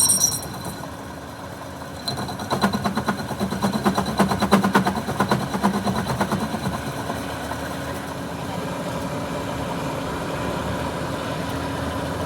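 A machine running: a rapid rattling run of knocks for several seconds, then a steady hum.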